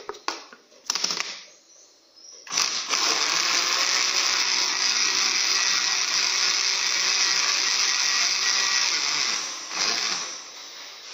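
A countertop blender runs steadily for about seven seconds, blending a watermelon, ginger, sesame-milk and citrus juice, and winds down near the end. A few clicks and knocks from the lid being fitted come just before the motor starts.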